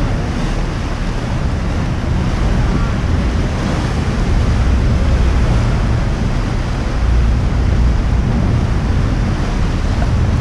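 Wind buffeting the microphone over the steady rush of waves and a low rumble aboard a moving tour boat.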